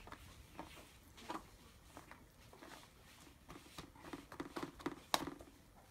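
Spoon spreading corn kernels in a disposable aluminium foil pan: faint, scattered scrapes and soft clicks, busier in the second half, with one sharper click about five seconds in.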